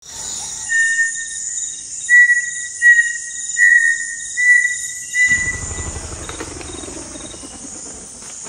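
Outro sound bed: a steady high insect drone with about six whistled, bird-like notes at one pitch, then a deep rumble swells in just past halfway as the drone carries on.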